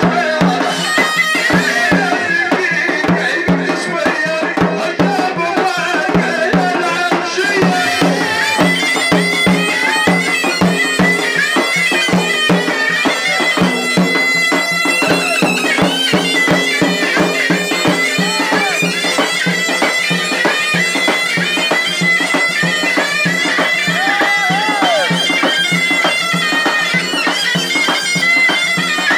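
Live folk music: a reedy wind instrument playing a melody over a steady drone, with regular hand-drum beats underneath.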